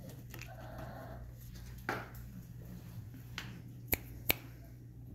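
Two sharp finger snaps about half a second apart near the end, with soft puppy whimpers earlier on.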